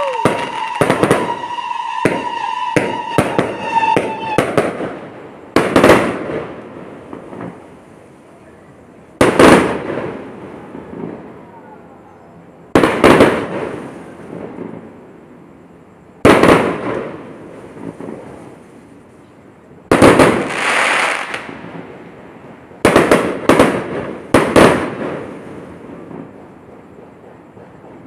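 Fireworks bursting: a rapid run of bangs over a steady high tone for the first few seconds, then single loud booms about every three and a half seconds, each trailing off into a fading rumble, with three in quick succession near the end.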